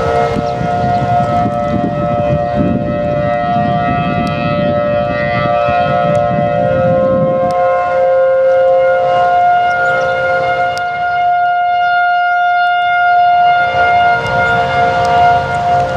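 Civil defense tornado sirens sounding a steady tone during a test, several pitches blended into one chord with a slight slow waver. A low rumble sits under them for about the first half and then drops away.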